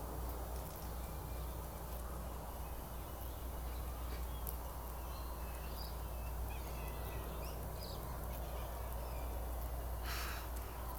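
Faint, short chirping calls scattered throughout, over a steady low rumble, with a brief rustle near the end.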